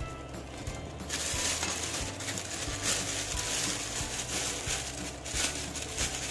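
Plastic piping bag rustling and crinkling as it is handled: a rough, crackly hiss with a few louder crackles, starting about a second in.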